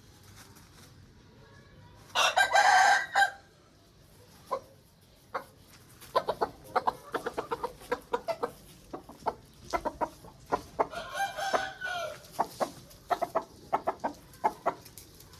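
Aseel chickens calling: a loud rooster crow about two seconds in, then runs of quick, sharp clucks, with a second, quieter crow partway through.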